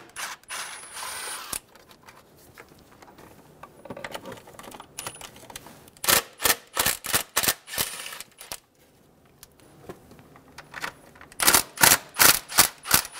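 Cordless ratchet with a 10 mm socket backing out intake box bolts: a brief whir about half a second in, then two runs of sharp clicks at about three a second, one around the middle and one near the end.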